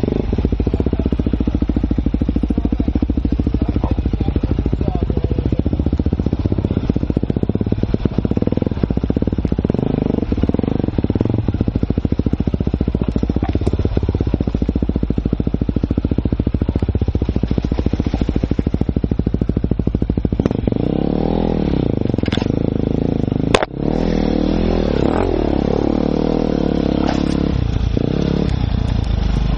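Enduro motorcycle engine running close to the microphone as it climbs a wet, muddy forest trail, revving up and down in the last third, with one sharp knock about two thirds of the way through.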